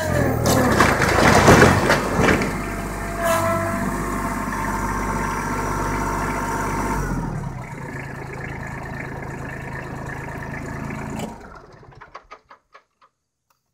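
Kubota B7500 tractor's three-cylinder diesel engine running under load while an old wooden barn roof gives way, boards cracking and crashing for the first two seconds or so. The engine then runs on steadily, drops lower about seven seconds in and cuts off about eleven seconds in.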